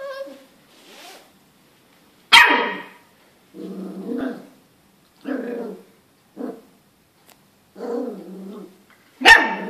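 A puppy barking sharply about two seconds in and again near the end, with short, lower growls in between.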